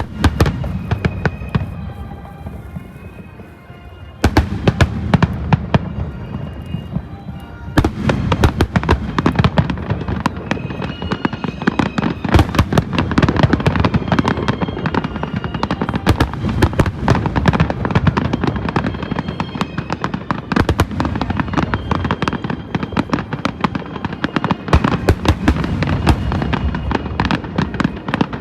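Fireworks display with shells bursting in rapid, overlapping bangs and crackling, thinner for the first few seconds and then a dense barrage. Music plays underneath.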